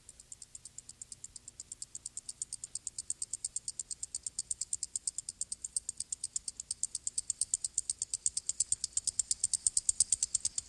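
Cartoon sound effect of rapid high-pitched electronic pulsing, about seven ticks a second, growing steadily louder.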